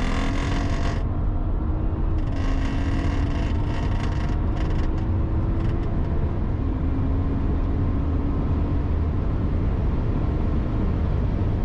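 Car engine pulling under acceleration, its pitch rising slowly and dropping at two upshifts, over a heavy low rumble. A harsher rasping noise comes and goes during the first five seconds, the kind of noise on corner exit that the driver is asking about.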